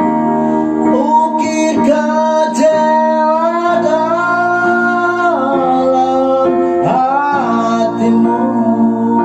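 A song with plucked acoustic guitar and a singing voice holding long, bending notes.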